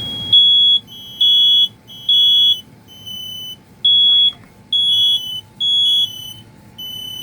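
Interconnected smoke alarms sounding together, set off by the test of one alarm in the system: loud, high-pitched beeps about half a second long, at two slightly different pitches that fall out of step with each other.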